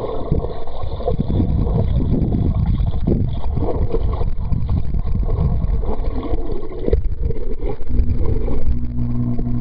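Swimmers' churning water and splashing heard underwater in a swimming pool: a dense, muffled rumble. A steady low hum comes in near the end.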